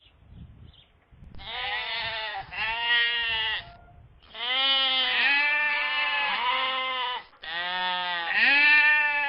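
Sheep bleating: a run of long, wavering bleats, one after another with short breaks between them.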